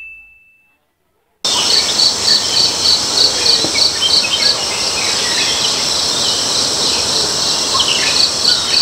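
Dense insect chorus with a high trill pulsing about three times a second and scattered bird chirps, cutting in abruptly about a second and a half in, after the fading ring of a ding and a moment of silence.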